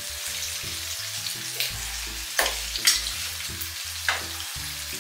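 Batter-coated banana strips deep-frying in hot oil in a pan: a steady sizzle, with a few sharp clicks, the loudest about three seconds in.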